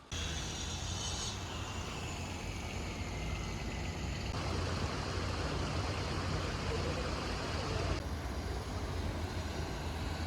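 Steady outdoor background noise: a low rumble under an even hiss, with the character shifting abruptly at edits about 1, 4 and 8 seconds in.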